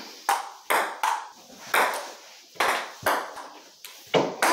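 Ping pong ball clicking against the table top and paddle in a rally: about eight sharp, separate clicks at uneven spacing, roughly every half second.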